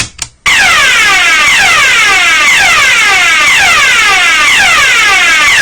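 Two clicks as the manual call point's button is pushed. About half a second in, a Yodalarm fire alarm sounder starts the German DIN 33404 evacuation tone: loud, continuous, a rapid run of falling sweeps repeating one after another.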